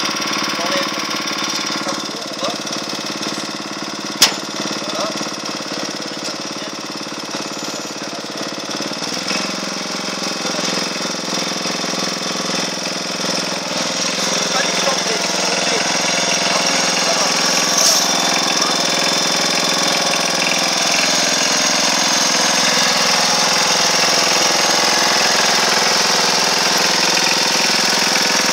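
Riding lawn mower's small engine running steadily, its pitch shifting about nine seconds in and getting louder over the second half. A sharp click about four seconds in.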